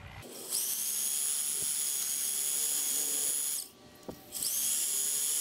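Reciprocating saw cutting through a steel muffler pipe near its elbow, in two runs with a short stop and a click about two-thirds of the way in; the motor's whine rises as each run starts. The sound is sped up fourfold, so the whine is high-pitched.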